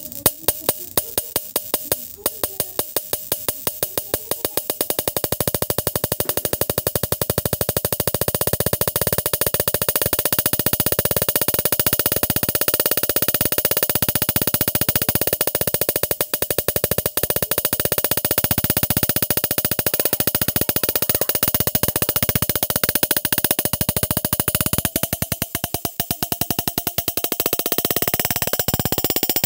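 High-voltage electric sparks: separate snapping clicks about three or four a second at first, quickly speeding up into a continuous crackling buzz with a steady tone running under it.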